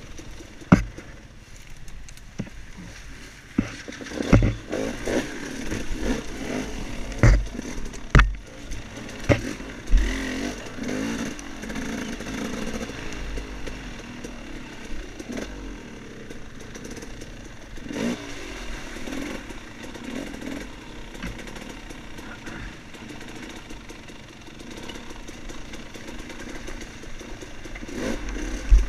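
Dirt bike engine running along a trail, its pitch rising and falling with the throttle, with several sharp knocks and thumps in the first ten seconds and another near the end.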